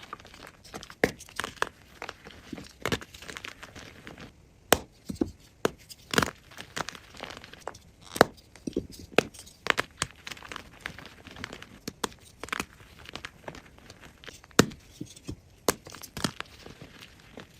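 A block of gym chalk (magnesium carbonate) being crushed close up: a continuous run of dry, crisp crunches at irregular intervals, with a louder crack every second or two.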